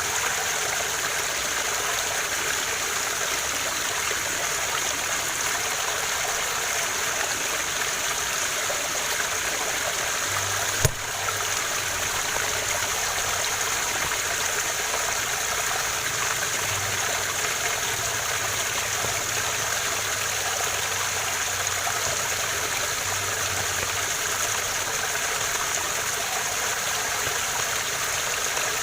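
Waterfall: steady rushing of falling water, with one sharp click about eleven seconds in.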